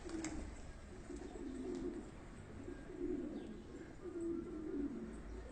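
Several domestic pigeons cooing, with low coos following one another without a break.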